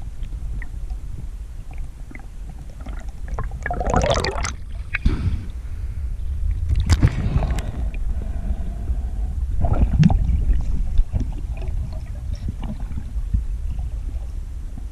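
Water gurgling and sloshing around a camera in the water, over a steady low rumble, with three louder surges about three seconds apart.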